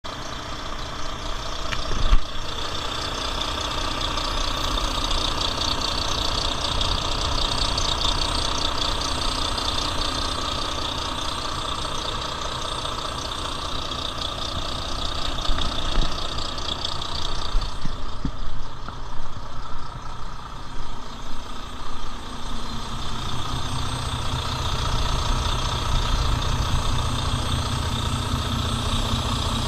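Volvo D13 425 hp inline-six diesel engine idling steadily, sold as a good runner. A single sharp knock sounds about two seconds in.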